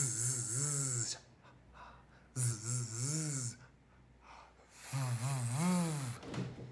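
A man's voice sounding a sustained voiced consonant, a buzzing hum with a hiss on top, three times in a row. Each lasts about a second and glides up and down in pitch, as in a singer's warm-up exercise on voiced consonants.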